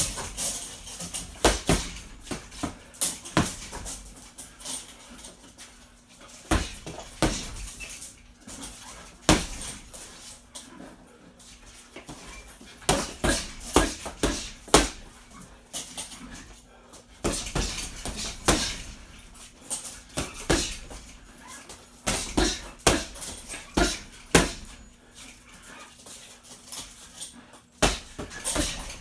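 Boxing gloves striking a hanging heavy bag in quick flurries of several punches, with short pauses between them.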